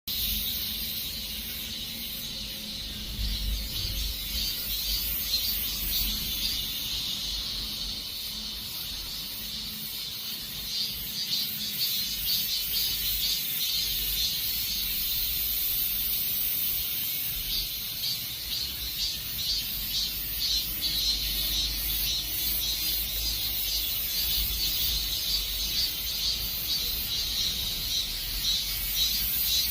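A chorus of many cicadas buzzing steadily in a pulsing drone, swelling and easing at times. A low rumble runs underneath.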